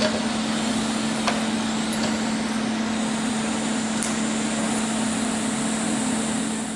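MIG welder in use on a small steel part: a steady hum under an even hiss, with a few sharp clicks.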